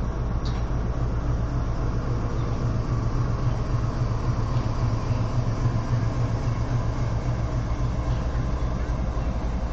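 Pakistan Railways GEU-40 diesel-electric locomotive's engine running with a steady low drone as it shunts a hopper wagon slowly past, with a few faint clicks from the wagon's running gear.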